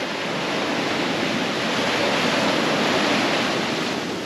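Ocean surf washing up the sand in the shore break, a continuous rushing hiss that swells about two to three seconds in and then eases off.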